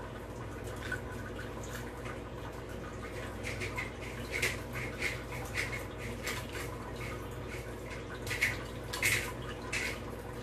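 Irregular light clicks and taps of small metal parts being handled as a brake-shift lever is fitted to a road-bike handlebar, over a steady low hum. The clicks come more often from a few seconds in, with two louder ones near the end.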